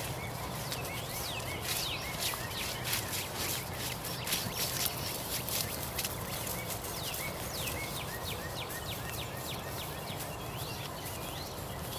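Outdoor ambience full of short, rising high-pitched chirps from small animals, several a second throughout. In the first half there is a scatter of sharp clicks.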